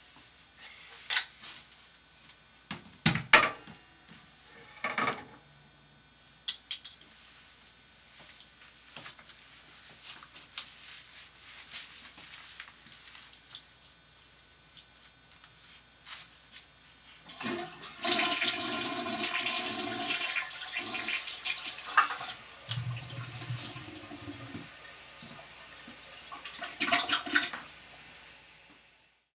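A few knocks, then a toilet flushing about seventeen seconds in: a loud rush of water for about four seconds that eases into quieter running water.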